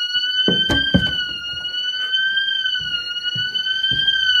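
Electronic alarm sounder going off: one loud, continuous shrill tone that wavers slowly up and down in pitch. A few knocks sound under it about half a second to a second in.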